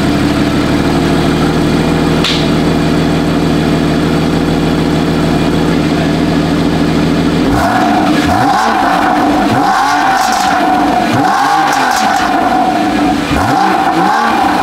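Porsche 981 Cayman S flat-six on its stock exhaust, idling steadily, then blipped four times from about seven seconds in, each rev rising and falling back to idle. The stock exhaust is mild, with some depth to it.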